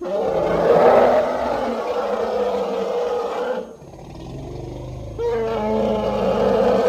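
Elephant calling: a loud roaring call starts abruptly and lasts about three and a half seconds, drops to a quieter low rumble, then a second loud call begins about five seconds in.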